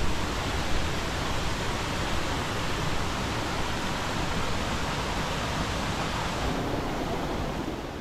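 Mountain stream rushing over rocks: a steady, even rush of water, softening slightly near the end.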